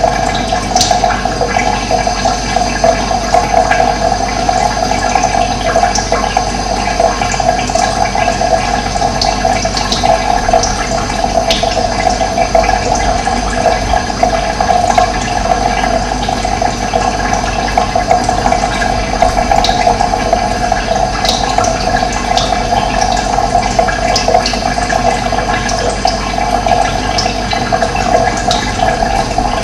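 Running water flowing steadily, with a few short, high bird chirps now and then.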